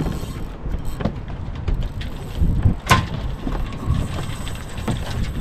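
Wind buffeting the microphone in gusts, a low rumble that swells and fades, with a few light knocks and one sharp click about three seconds in.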